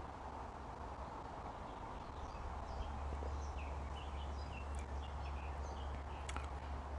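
Quiet outdoor garden ambience: scattered faint bird chirps over a steady low rumble, with a couple of faint clicks near the end.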